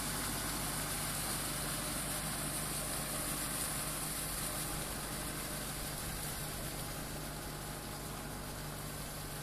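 Kubota MU5501 tractor's four-cylinder diesel engine running steadily under load as the 4WD tractor works a rotary implement through deep paddy-field mud, growing a little fainter about halfway through.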